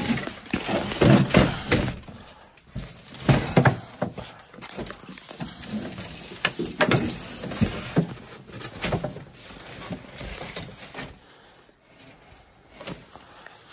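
Rummaging through a heap of junk: irregular knocks and clatter of wooden boards and boxes, with rustling of plastic bags and packaging. It is loudest in the first few seconds and quieter near the end.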